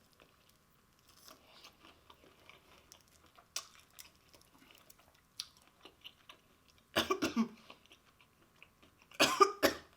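Close-miked chewing of fried chicken wings, faint and wet, broken by two short bouts of coughing about seven and nine seconds in.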